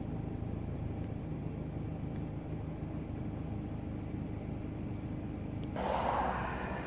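Car engine running with a steady low hum, heard from inside the vehicle. Near the end a rush of hiss comes in for about a second.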